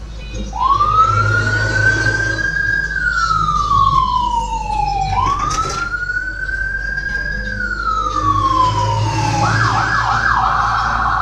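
Electronic emergency siren wailing: the tone glides up, holds high and slides slowly back down, twice over. Near the end it switches to a fast yelping warble.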